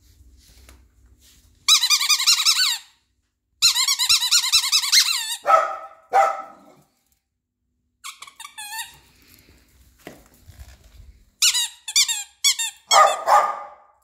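Red rubber squeaky ball squeezed by hand in runs of rapid, warbling squeaks. Between the runs and near the end a dog gives a few short, lower barks.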